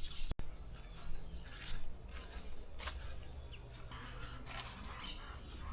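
Faint outdoor ambience: scattered short bird chirps over a low steady hum, with a few soft clicks and rustles.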